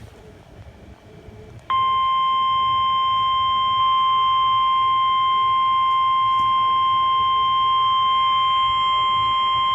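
NOAA Weather Radio warning alarm tone: a single steady 1050 Hz tone that comes on sharply about two seconds in and holds, signalling that a warning message follows. Before it, only faint radio background noise.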